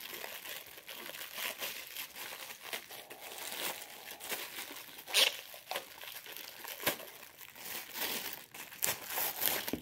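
Thin clear plastic packaging crinkling and crackling as it is handled and pulled at by hand, with a run of short crackles and a sharper one about five seconds in.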